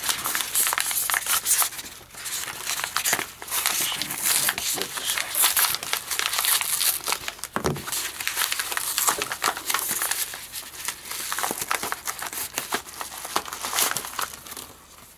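Yellow paper mailing envelope being slit with a folding knife and torn open by hand, with continuous crinkling and tearing of paper.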